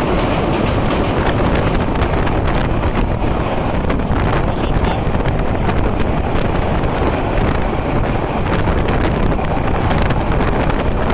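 Wind rushing over the microphone at the open door of a moving passenger train, over the steady running noise of the train on the track.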